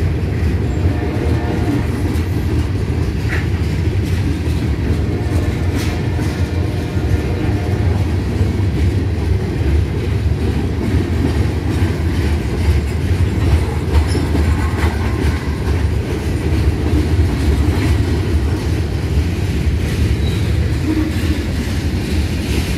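CSX freight train of covered hopper cars rolling past close by: a steady low rumble of wheels on the rails with occasional faint clicks.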